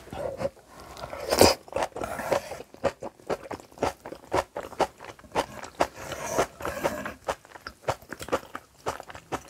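Close-miked crunchy chewing of kimchi: many quick, crisp crunches at an uneven pace, with a louder bite about one and a half seconds in.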